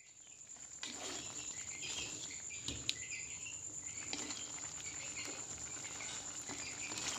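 Sweet-soy chicken sauce sizzling and bubbling in a wok as it reduces, with a metal spatula knocking and scraping against the pan a few times, the loudest knock about three seconds in. A thin steady high-pitched tone sounds underneath.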